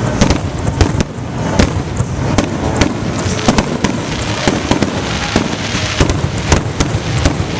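Fireworks display: a continuous barrage of sharp bangs and crackles, several a second, over a steady rumble of booms.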